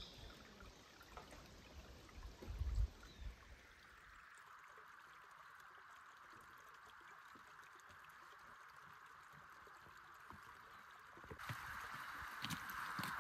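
Small shallow stream trickling over stones, a steady light rush that grows louder about three-quarters of the way through. A few low thumps come in the first few seconds, and footsteps crunch on gravel near the end.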